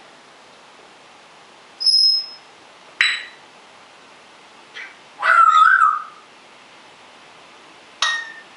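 African grey parrot whistling and calling in short separate bursts: a clear high whistle about two seconds in, a sharp call a second later, a longer wavering call around the middle, and another sharp call near the end.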